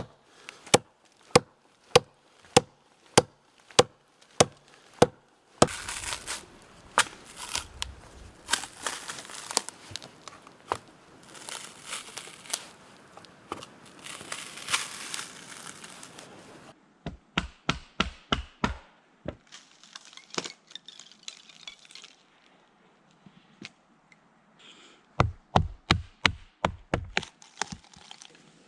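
Axe chopping wood in steady strokes, about two a second. Then a long stretch of tearing and crackling, followed by quicker runs of knocks near the end.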